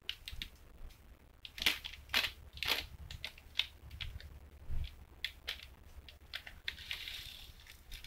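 Plastic candy wrapper crinkling and crackling in short, irregular bursts as the candy is unwrapped, with a longer rustle near the end.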